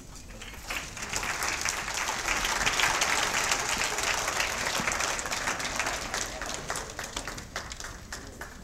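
An auditorium audience applauding. The clapping swells over the first few seconds, peaks, and then slowly dies away.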